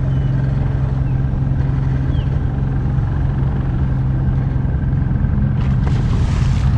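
An engine running steadily at an even pitch, a constant low hum. A brief hissing rush comes in about five and a half seconds in.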